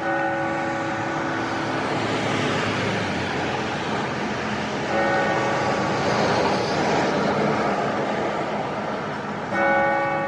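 Clock bell striking the hour of eleven: three strikes about five seconds apart, each ringing on and slowly fading, over a steady rushing background noise.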